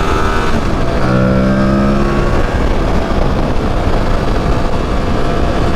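Aprilia Tuareg 660's parallel-twin engine running at road speed under heavy wind rush on the microphone, with the engine's tone standing out clearly for about a second and a half shortly after the start.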